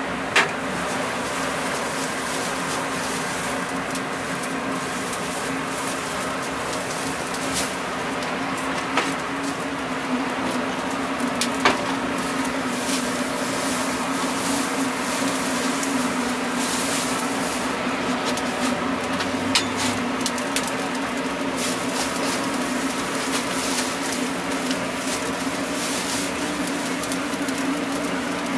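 Straw fire burning and crackling, with scattered sharp pops that come thicker in the second half as the flames build, over a steady low mechanical hum.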